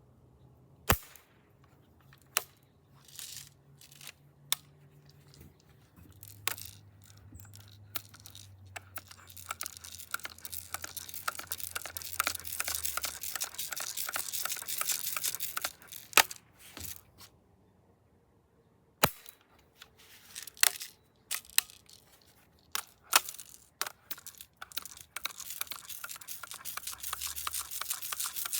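About ten sharp snaps spread irregularly among long stretches of rustling and crinkling handling noise.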